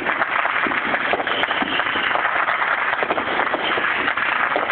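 Fireworks and firecrackers crackling densely and without a break, a steady stream of many small pops.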